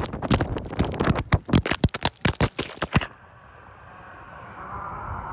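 A rapid, uneven run of knocks and scrapes on the recording device itself, as it is jostled against hard surfaces; it stops abruptly about three seconds in, leaving only a faint steady hiss.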